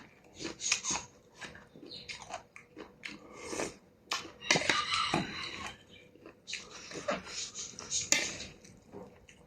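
A person eating noodle soup with stewed beef close to the microphone: irregular chewing and biting sounds, with longer noisy stretches about halfway through.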